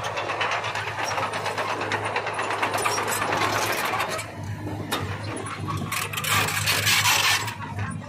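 Diesel engines of a dump truck tipping its raised bed and a small crawler bulldozer running, with a steady hum and a fast mechanical rattle. About six seconds in a louder rushing noise rises and fades about a second and a half later.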